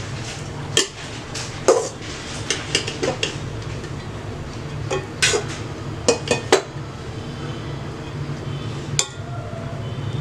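Metal spoon clinking and knocking against a cooking pot in scattered strikes while biryani layers are spread, over a steady low hum.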